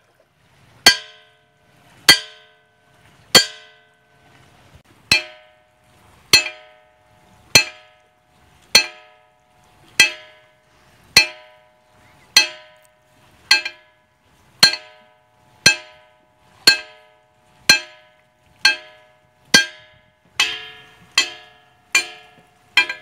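Ringing rocks (singing stones) struck with an iron bar, about twenty blows a little over a second apart, coming slightly faster near the end. Each blow gives a bell-like clang with several ringing tones that die away within about a second.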